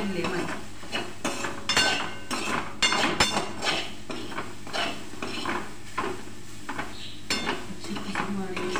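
Metal spatula stirring soybean chunks and sprouted moong in a pan, scraping and clinking against it in irregular strokes, a few each second.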